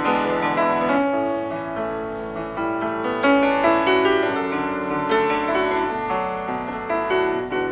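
Background piano music: a melody with chords played note by note.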